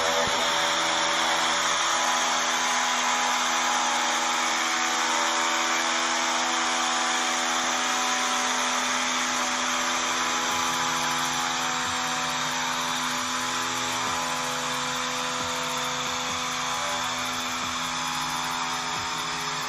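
A handheld power cutting tool running steadily with a high whine as it cuts the opening for a sunroof in a car's metal roof panel, heard played back from a phone video.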